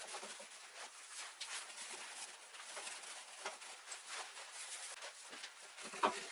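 Dry, crackly rustling of loose fibre upholstery stuffing being teased and spread over a chair seat by hand. Near the end there is a single louder thump as a sheet of jute burlap is laid over the seat.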